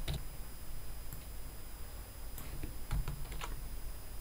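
Sparse, irregular keystrokes and clicks on a computer keyboard, a few separate taps with pauses between and a small cluster about two and a half to three and a half seconds in.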